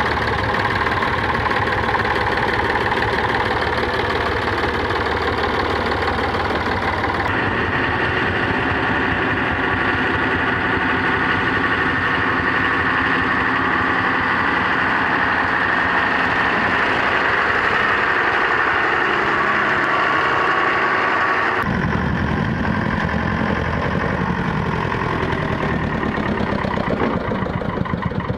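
Vintage diesel tractor engines running as old tractors drive slowly past one after another. The engine sound changes abruptly twice as one tractor gives way to the next.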